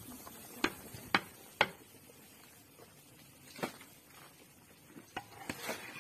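Sharp knocks and taps: three in a row about half a second apart, then one more and a few smaller ones near the end.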